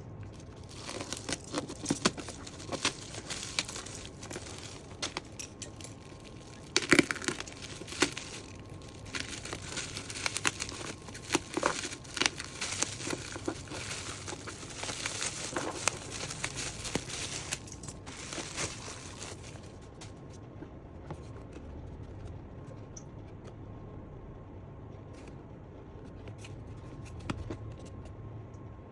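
Packaging of a camera box being opened by hand: plastic and paper crinkling and tearing, with clicks and taps of handling. After about twenty seconds it turns quieter, with only an occasional small knock.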